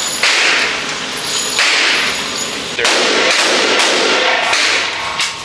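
Gunfire from other lanes of an indoor shooting range: a few loud shots, about one every second and a half, each with a long echoing tail.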